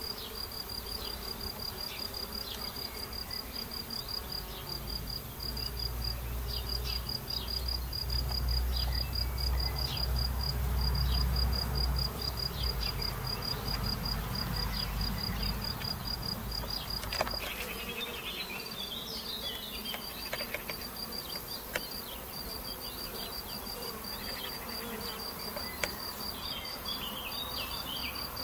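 Honeybees buzzing as they fly in and out of a Warré hive entrance. Over the buzzing runs a steady, fast, high-pitched insect chirp.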